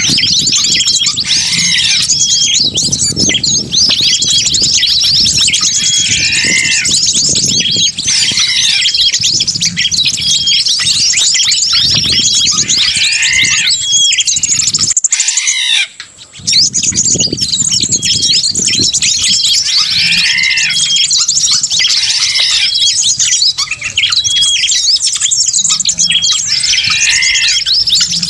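Bird-lure recording: a dense mix of many small birds chirping, trilling and squawking at once, with one call phrase coming back every three to four seconds and a short break about halfway.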